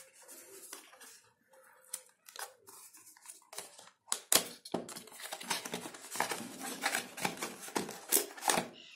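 Small cardboard retail box being opened by hand: a few light clicks and taps at first, then from about four seconds in a dense run of paperboard scraping, rustling and tearing as the flap is worked open and the inside pulled out.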